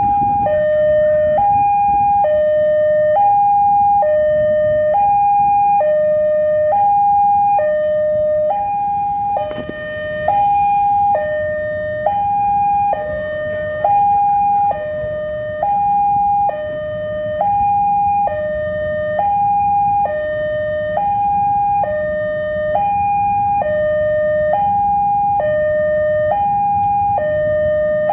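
Railway level-crossing warning alarm sounding its steady two-tone signal, a high and a lower tone alternating about every three quarters of a second to warn of an approaching train. A low rumble runs underneath.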